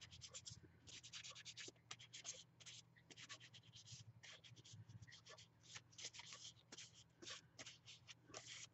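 Faint, irregular rubbing strokes, a few a second, of a folded paper towel wiped over long acrylic nails to clean them with alcohol before polishing.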